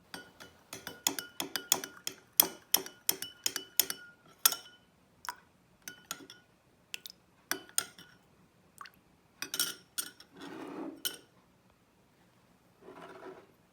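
A metal spoon clinking against a glass vessel: a quick run of taps, each with a short ringing tone, for the first few seconds, then scattered single clinks. Two short scraping, rustling noises come near the end.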